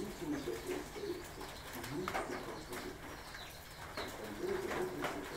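A dove cooing: a run of low coos, then a pause of a few seconds, and the coos start again near the end.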